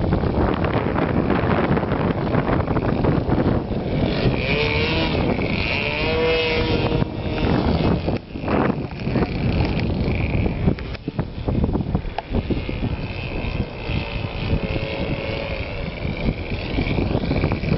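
Wind buffeting the microphone, with the thin whine of a model airplane's OS 46 LA two-stroke glow engine coming and going, its pitch bending up and down as the plane flies past.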